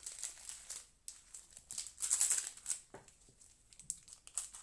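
Crinkly rustling of foil trading-card booster-pack wrappers and thin plastic gloves as a pack is handled and picked up, loudest about halfway through.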